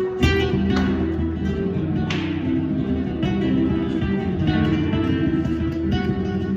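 Flamenco-style acoustic guitar playing, with plucked notes and strummed chords.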